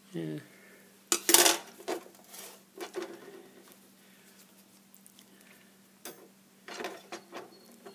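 Wire coat hanger and steel side cutters being handled, with sharp metallic clinks and rattles. The loudest cluster comes about a second in and another group about six to seven seconds in.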